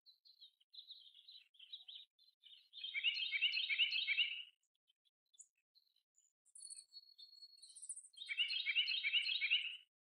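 Belted kingfisher giving its dry rattle call twice, each rattle lasting about a second and a half, the first about three seconds in and the second near the end. Fainter chirps and thin high notes from other small birds come between them.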